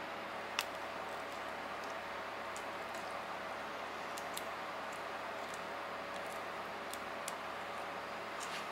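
Small sharp clicks and cracks of mantis shrimp shell segments snapping as they are peeled apart by hand, the loudest about half a second in, over a steady background hiss.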